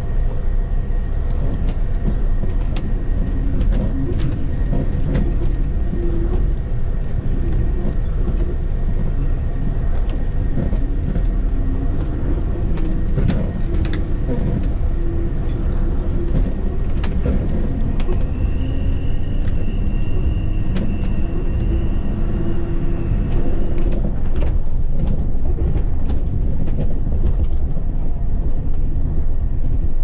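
A bus driving on a rough, partly unpaved road, heard from inside the cabin: a steady low engine drone and road rumble with frequent short rattles and knocks from the body. A thin high whine sounds for several seconds past the middle, then stops.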